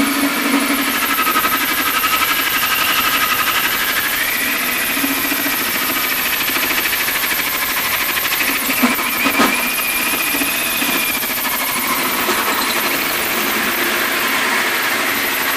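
Cordless drill turning a hole saw through the sheet steel of an ammo box under light pressure: a steady motor whine with a wavering squeal from the saw teeth cutting metal. Two short knocks come about nine seconds in.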